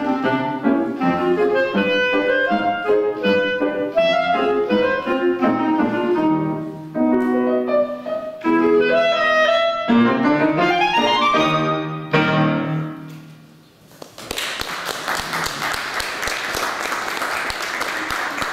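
Clarinet and piano playing the closing bars of a classical piece, with a rising run near the end and the final note dying away about 13 seconds in. An audience then applauds.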